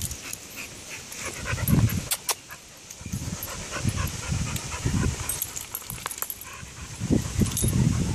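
Two pit bulls and a miniature poodle panting and scuffling as they play, with scattered light clicks and jingles from their collar tags.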